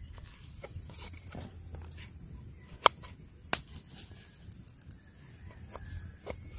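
Small kitchen knife cutting and trimming young (unripe) jackfruit on a wooden chopping board: a run of crisp cutting clicks and light taps, with two sharper knocks about three and three and a half seconds in.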